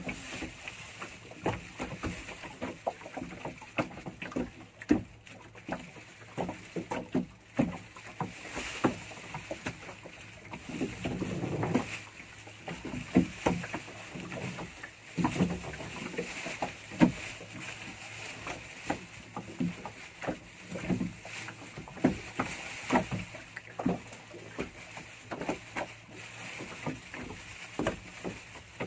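Water slapping and knocking irregularly against the hull of a small fishing boat at sea, over a steady hiss.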